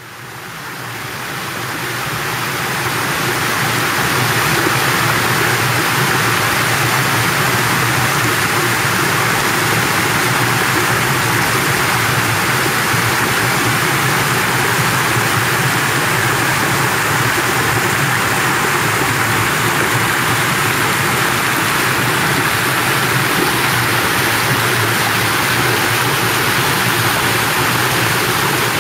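Waterfall rushing steadily over rock ledges and through a rocky channel, a dense even rush of white water. It fades in over the first few seconds, then holds level.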